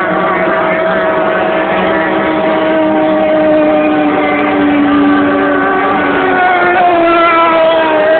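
Motorboat engine running steadily, its pitch sinking slowly and then rising again about six and a half seconds in.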